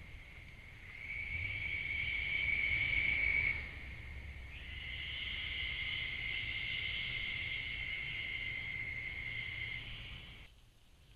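Night insects, crickets or katydids, trilling in a steady high chorus that swells about a second in, dips briefly, then holds and cuts off suddenly near the end.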